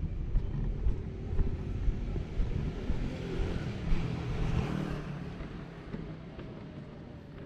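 A motor vehicle passes close by, its engine swelling to a peak a few seconds in and then fading away, over a low rumble of wind buffeting the microphone.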